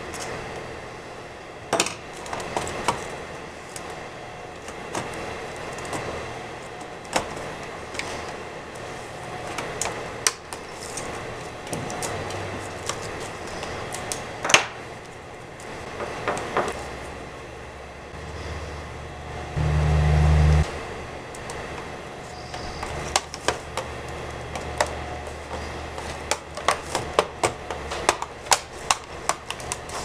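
Plastic clicks, taps and knocks as a Toshiba Satellite L355 laptop's keyboard and plastic trim strip are handled and pressed back into place, ending in a quick run of clicks. About twenty seconds in there is a low rumble lasting about a second, the loudest sound.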